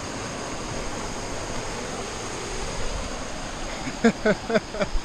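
Steady rushing outdoor noise, then a few short vocal sounds from a man about four seconds in.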